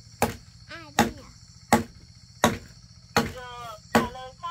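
Steady chopping: six sharp blows at an even pace, about one every three-quarters of a second, with a short voice heard between them.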